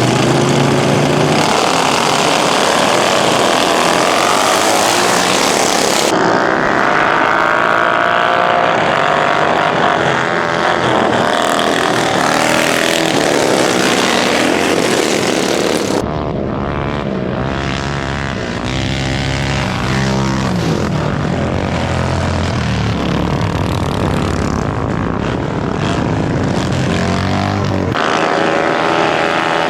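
Racing lawn mower engines running hard, their pitch rising and falling as they rev, with the sound changing abruptly a few times.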